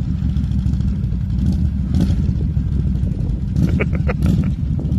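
Off-road vehicle engines running steadily with a deep, low rumble, with a few short pitched sounds about four seconds in.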